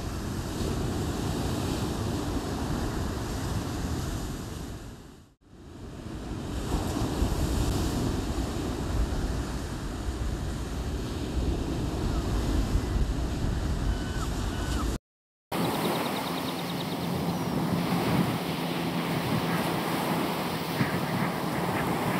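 Rough surf breaking and washing on a shingle beach, with wind buffeting the microphone. The sound dips away for a moment about five seconds in and cuts out briefly about fifteen seconds in.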